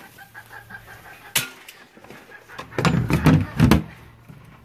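Feed scoop and plastic feed-bin lid being handled: a single sharp click about a second and a half in, then a quick run of knocks and clatter around three seconds in.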